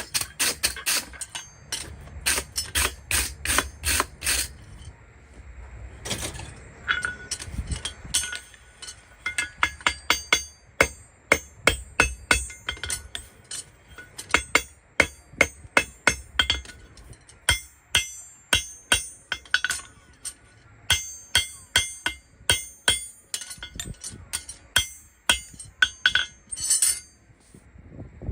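Farrier's hammer striking metal again and again in quick runs of sharp taps, with short pauses between runs.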